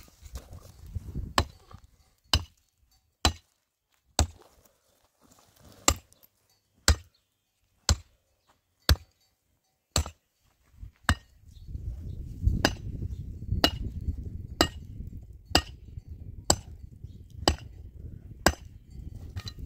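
Hammer blows at the foot of a young tree, sharp and evenly spaced at about one a second. From about twelve seconds in, a low rumbling noise runs under the blows.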